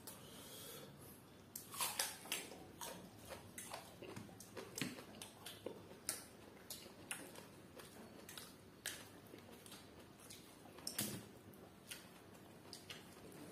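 Close-up eating sounds: wet chewing and lip smacking, an irregular string of soft clicks with louder ones about two seconds and eleven seconds in.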